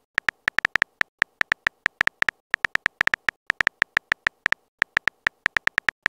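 Keyboard-tap sound effect of a texting-story app: short, high-pitched clicking ticks, about six to seven a second in an uneven rhythm, one per letter as a message is typed out.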